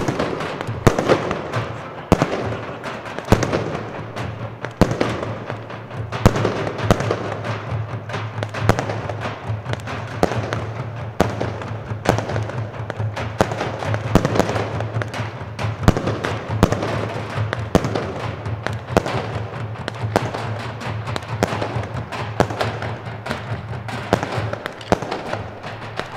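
Single-shot fireworks launching and bursting in an irregular series of sharp cracks and pops, over drumming.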